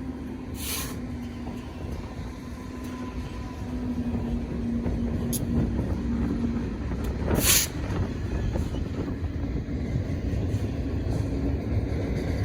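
Freight train's diesel locomotives rumbling, with a steady low hum that fades out past halfway, and wind buffeting the microphone. Two short hisses break in, about a second in and again past halfway.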